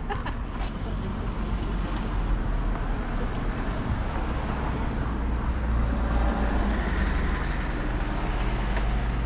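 Steady low rumble of a car, with wind noise on the microphone, getting slightly louder toward the end.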